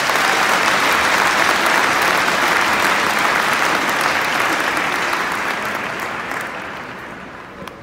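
Arena crowd applauding in a dense, even clatter of clapping that fades away over the last two seconds.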